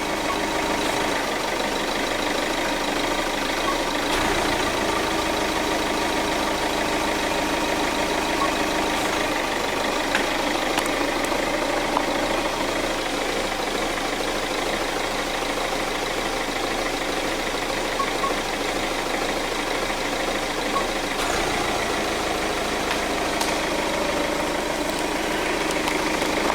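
Kia Carens 1.7 diesel engine idling steadily while its throttle actuator is cycled by a scan-tool actuation test, with a shift in the engine's low note about four seconds in and again about twenty-one seconds in. The actuator responds: it is working.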